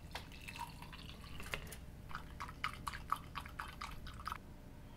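Hot water being poured into a mug of instant coffee powder, followed by a stirrer clicking against the sides of the mug as the coffee is stirred, about five light ticks a second.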